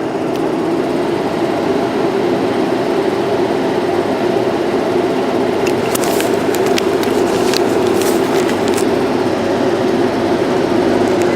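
Class 90 electric locomotive and its Mark 3 coaches departing, a steady loud running rumble from the train. A quick cluster of sharp clicks and clacks from the wheels comes about six to nine seconds in.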